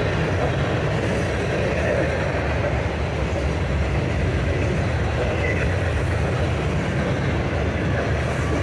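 Freight train cars rolling past close by: a steady, loud rumble and rattle of wheels on rail. A locomotive goes by near the end.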